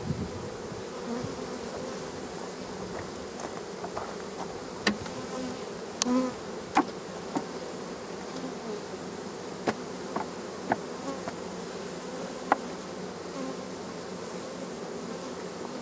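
Honey bees from a crowded, disturbed colony buzzing in a steady, dense drone around the open hive, with several sharp taps scattered through the middle.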